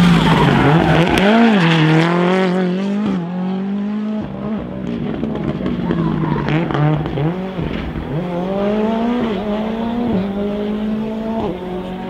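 Ford Fiesta rally car's engine revving hard through a stage, its pitch climbing and dropping again and again as it shifts and lifts off, with a few sharp cracks along the way.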